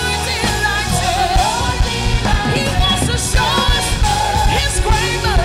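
Gospel worship song: a voice singing a wavering, sliding melody over a backing band with bass and drums.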